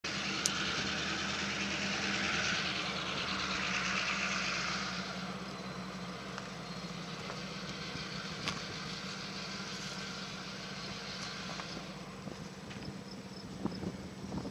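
Steady low engine hum, with a rushing noise over it for about the first five seconds that then fades away.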